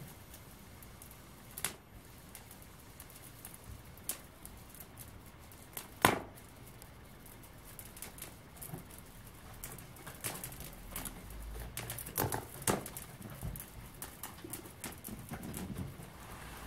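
Latex balloon slowly deflating inside a paper mache shell: scattered crackles and pops as the shrinking rubber shifts against the shell, the loudest about six seconds in, coming more often in the second half.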